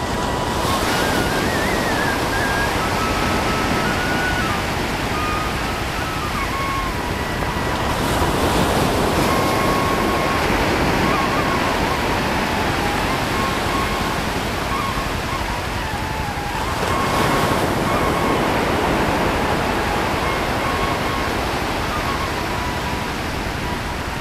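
Steady noise of sea surf, small waves breaking and washing up a sandy beach, swelling and easing a little. A faint melody of background music runs quietly underneath.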